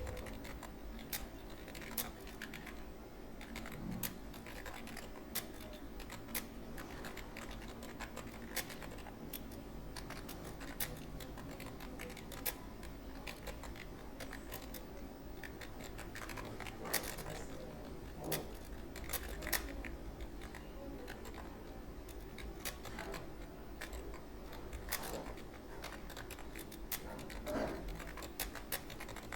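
Typing on a computer keyboard: a run of irregular keystroke clicks, several a second, some louder than others.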